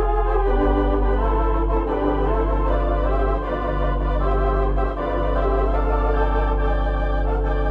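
Organ music: slow sustained chords that shift every second or two over a steady deep bass note.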